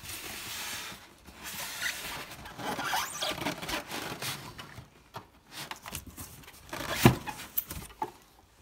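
Packaging rustling and scraping against a cardboard box as an overlock sewing machine is lifted out of it, with one sharp knock about seven seconds in.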